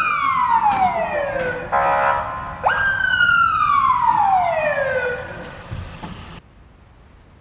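Police siren wailing: each wail jumps up quickly and falls slowly over about two seconds, twice, with a short buzzing horn blast between them about two seconds in. It fades and cuts off suddenly about six seconds in.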